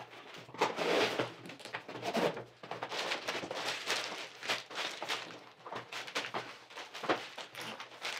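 Cardboard box being opened and plastic bags of building bricks rustling and crinkling as they are lifted out and set down, in irregular short bursts throughout.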